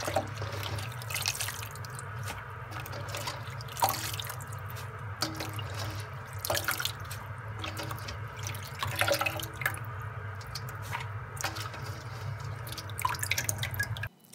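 Sliced bok choy being swished by hand in a bowl of water: irregular splashing and dripping over a steady low hum, stopping abruptly near the end.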